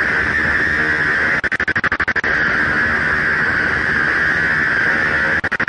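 Harsh, steady noise soundtrack with a hissing band in the upper middle, twice chopped into a rapid stutter of about a dozen quick cuts, once about a second and a half in and again near the end.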